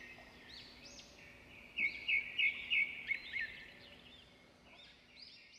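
Birds chirping and calling in a steady birdsong ambience, with a run of about six loud, quick chirps about two seconds in.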